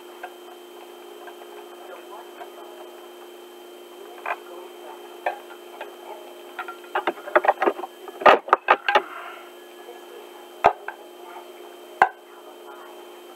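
Plastic action figure and its accessory parts being handled and fitted together: scattered small clicks and taps, a quick run of sharp clicks a little past the middle, then two single sharp clicks near the end, over a steady low hum.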